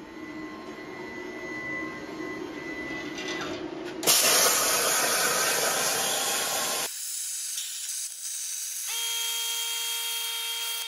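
Hynade CUT60DN plasma cutter on a CNC table: about four seconds in the arc starts with a sudden loud hiss that lasts a few seconds. Later a steady whine made of several tones sets in as the cut goes on.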